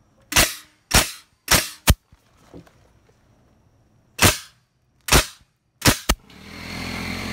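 Metabo HPT framing nailer driving nails into a wooden knee brace: about eight sharp shots, several in quick pairs, spread over six seconds. A steady rushing noise sets in near the end.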